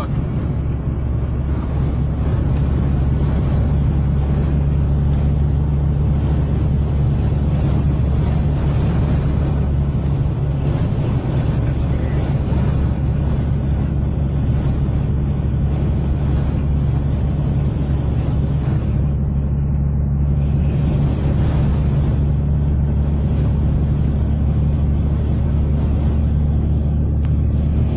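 Steady drone of engine and tyre noise inside a vehicle's cab cruising on the highway: a constant low hum with road rumble that does not change.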